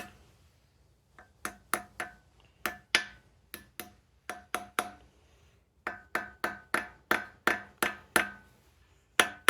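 Hammer tapping a clutch pilot bearing into the center of a Subaru 2.5 SOHC flywheel: sharp metal-on-metal strikes with a ringing note, about three to four a second, in several runs separated by short pauses.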